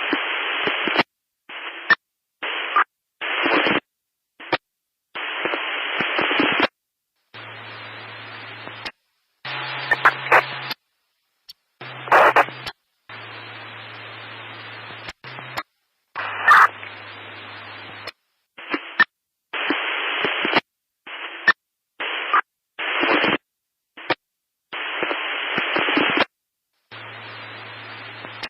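Static hiss in bursts of a second to a few seconds that cut in and out abruptly, with dead-silent gaps between. Some quieter stretches carry a low steady hum, and there are occasional sharp crackles.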